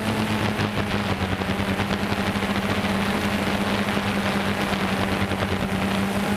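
DJI Phantom 2 quadcopter's motors and propellers in flight, a steady buzzing drone of unchanging pitch under a rushing hiss.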